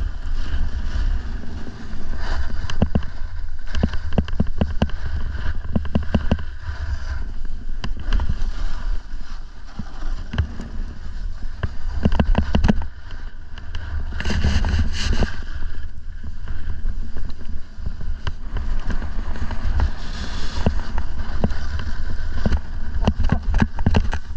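Snowboard sliding and scraping over snow, with bursts of scraping and chatter, under a heavy rumble of wind buffeting the microphone.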